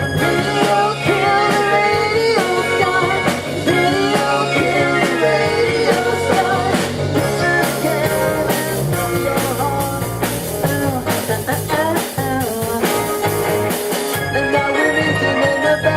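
Live rock band playing a song: drums keeping a steady beat under bass and electric guitar, with a wavering melody line that may be a voice or a guitar lead.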